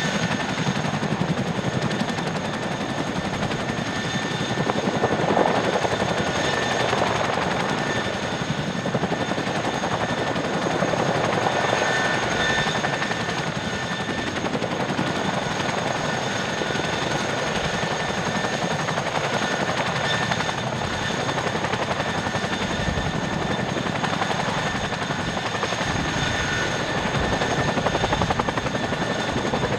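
CH-47 Chinook tandem-rotor helicopter hovering low: a continuous rapid rotor chop under a steady high turbine whine, holding level throughout.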